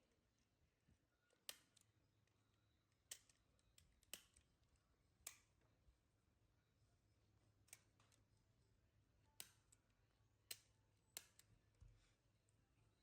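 Near silence broken by about ten faint, sharp clicks at irregular intervals.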